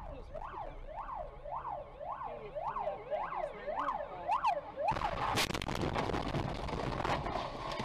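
Ambulance siren sweeping rapidly up and down, nearly two cycles a second. About five seconds in, a sudden loud crash of impact and crunching noise as a car collides, lasting a couple of seconds.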